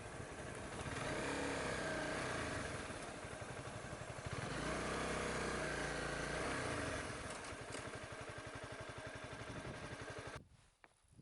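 Honda CBR250R motorcycle engine running under way, its pitch rising and falling with throttle and speed, mixed with wind noise. The sound cuts off suddenly near the end.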